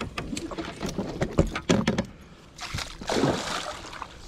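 Hooked pike thrashing at the surface beside a kayak. A burst of splashing comes about three seconds in, after a run of quick clicks and knocks.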